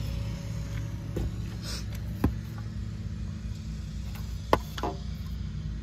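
Items being rummaged about in a cardboard box, with a few short sharp clicks and knocks of plastic, about two seconds in and twice more near the four-and-a-half-second mark, over a steady low rumble.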